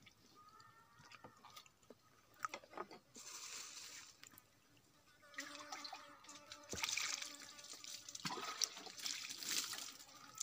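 Water splashing and trickling in a few bursts, with light knocks and clicks.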